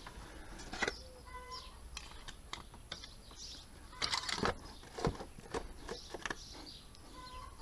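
Birds chirping faintly, with scattered light clicks and knocks of parts being handled under the bonnet as the dipstick goes back in and the oil filler cap is screwed on, the busiest clatter about four seconds in.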